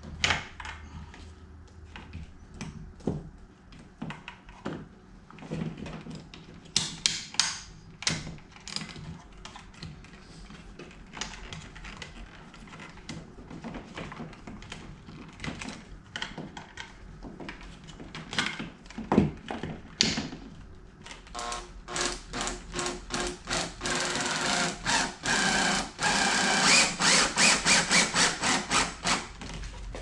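Scattered light clicks and knocks of wires and an electrical box being handled, then from about 21 seconds a power driver running in short, rapidly repeated pulses as it drives a screw into the stud to hold the box.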